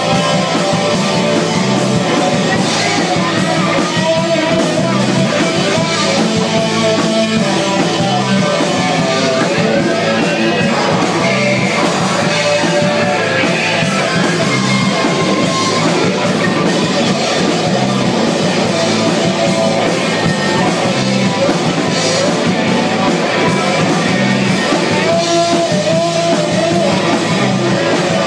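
Live post-punk rock band playing loud and steady, with electric guitar, bass, drum kit and keyboard together.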